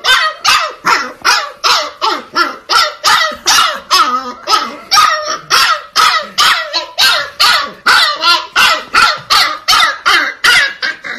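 Husky puppy barking loudly and without pause, about two to three short barks a second.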